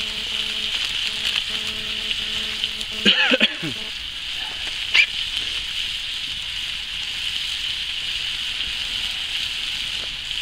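Pan of peppers and onions frying over a campfire grill: a steady sizzling hiss. A short sliding cry rises over it about three seconds in, and there is a single click about two seconds later.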